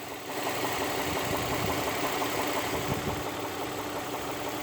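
Infiniti's VQ35DE 3.5-litre V6 engine running steadily at idle with a knock, the fault the owner is recording.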